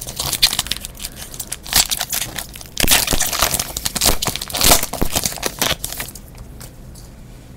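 Foil wrapper of a trading-card pack being torn open and crinkled off the cards: dense crackling, loudest about three to five seconds in, dying away near the end.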